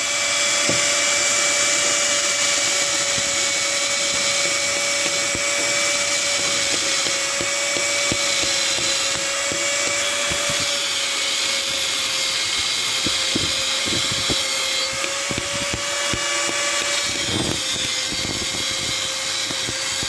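Electric angle grinder with a thin cutting disc cutting through the weld between a hydraulic tipper cylinder's eye bracket and its tube. It gives a steady motor whine that dips slightly in pitch now and then, over a high grinding hiss.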